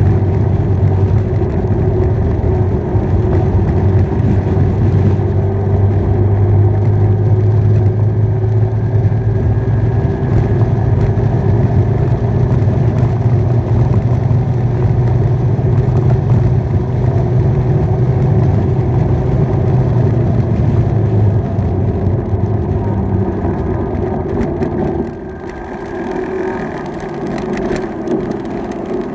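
Motorbike engine running at a steady cruising speed, with wind rumble on the microphone; about 25 seconds in the engine note drops as the rider eases off.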